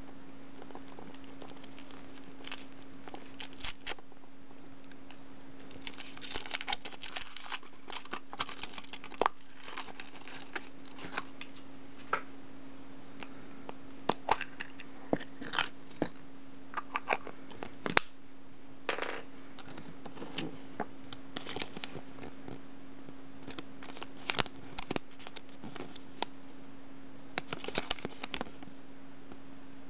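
Foil wrapper of a Furuta chocolate surprise egg crinkling and tearing as it is peeled off by hand, in irregular crackling spurts, over a steady low hum.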